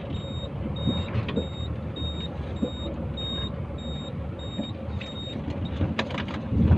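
Dump truck's diesel engine running, heard from the cab. A high warning beeper sounds a little under twice a second over it and stops about five seconds in. A few knocks follow, then a heavier thump near the end.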